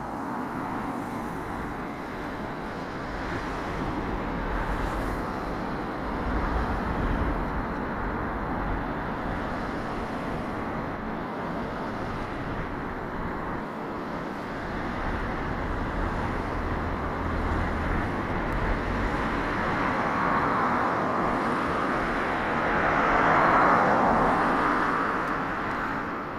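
Steady outdoor road traffic noise, with one vehicle swelling up to pass about three-quarters of the way through and then fading.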